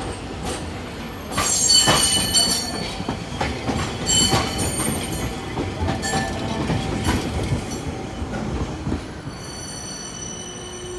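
Hiroshima Electric Railway tram No. 713 rolling out over the station pointwork, its wheels knocking sharply and irregularly on the rail joints and switch frogs, with short bursts of high wheel squeal. Near the end a steady high whine sets in.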